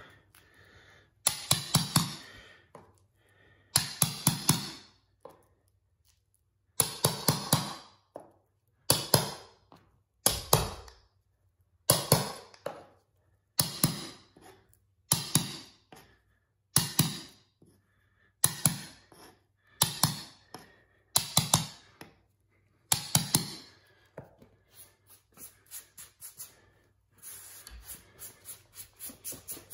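Metal carpet stair tool being knocked down to tuck a carpet edge against tile, in short bursts of several quick sharp knocks about every second and a half. After about 24 s the knocking gives way to fainter, rapid light ticking.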